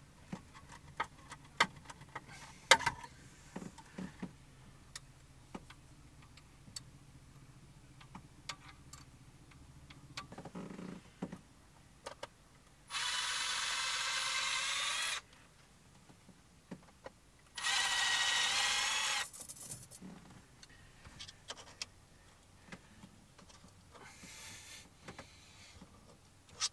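Cordless drill-driver run twice for about two seconds each, working the screw of a hose clamp on a marine diesel's exhaust hose, amid small clicks and knocks of hand tools.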